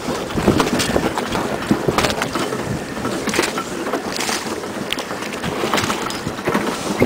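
Wind buffeting the microphone in irregular gusts over the rush and slap of water along a sailboat's hull as it sails through choppy sea.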